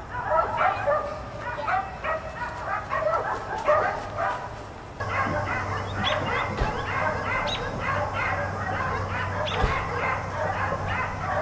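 Dogs barking and yapping nonstop, short high barks from more than one dog overlapping one another. About halfway through, a break in the recording brings in a steady low hum beneath the barking.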